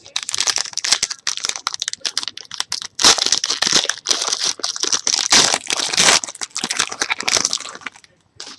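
Foil trading-card pack wrappers being torn open and crinkled by hand: a dense, loud crackling that stops shortly before the end.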